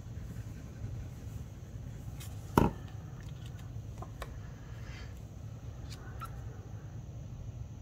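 Paper and card being handled and pressed onto a tabletop: faint scattered rustles and light taps, with one sharp knock about two and a half seconds in, the loudest sound.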